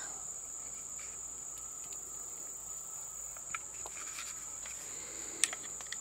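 Steady high-pitched chirring of insects. Near the end come a few faint clicks as a .223 cartridge is pressed into an AR-15 magazine.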